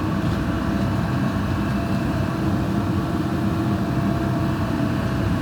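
Backhoe's diesel engine running at a steady speed, a constant low hum.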